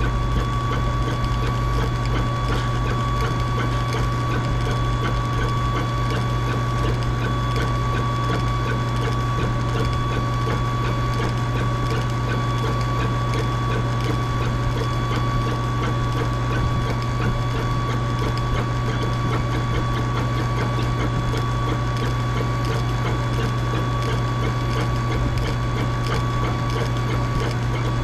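Cuia-engraving machine running steadily through an engraving job on a chimarrão gourd: fast, even mechanical ticking over a steady low hum and a thin steady tone.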